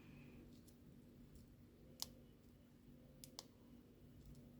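Faint, sparse metallic clicks from a euro cylinder lock and its pins being handled: one sharper click about two seconds in and two more close together just after three seconds.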